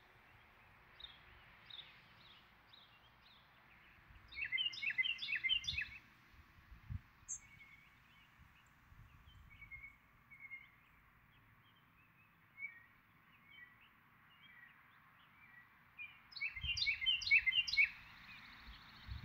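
Wild birds singing in woodland: two bursts of quick, repeated high chirps, about four seconds in and again near the end, with scattered single chirps between, over a faint low rumble.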